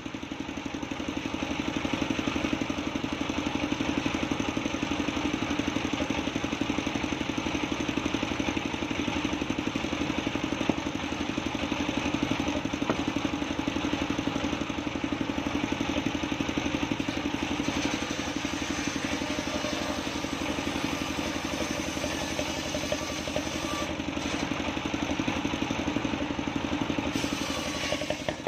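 Homemade engine-driven circular saw running steadily while sengon wood is fed through it.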